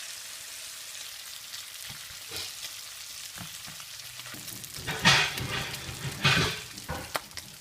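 Beef burgers and bacon sizzling steadily in a hot oiled frying pan. Two louder short bursts come about a second apart near the end, as the food is handled in the pan.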